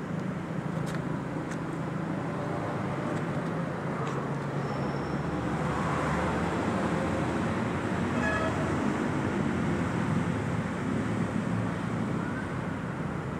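Steady road traffic noise with a low engine hum, growing a little louder through the middle as a vehicle passes.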